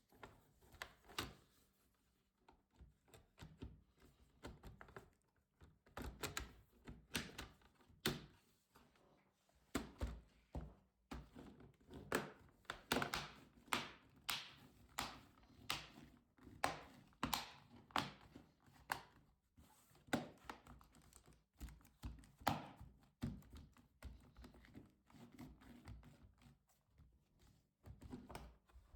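Irregular clicks, taps and knocks of a laptop's plastic case and internal parts being handled by hand, coming in uneven runs, sometimes several a second.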